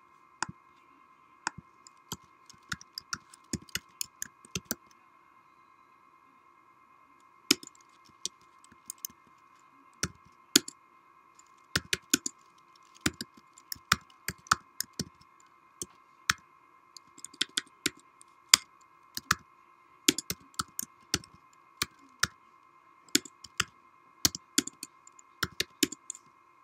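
Irregular sharp clicks, singly and in quick clusters, with a pause of about two seconds a few seconds in. A faint steady whine runs underneath.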